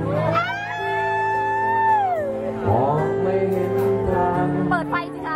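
Live acoustic band: acoustic guitars holding chords while a singer sustains one long, slightly bending note, then goes on with shorter phrases.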